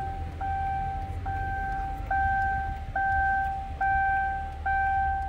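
Car warning chime in a 2007 Hyundai New Equus, a single-pitch ding repeating evenly about once every 0.85 seconds, six times, over a low steady rumble.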